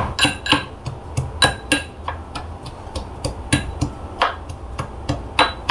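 Pestle pounding garlic cloves in a mortar: a dozen or so irregular strikes, each with a brief ringing tone.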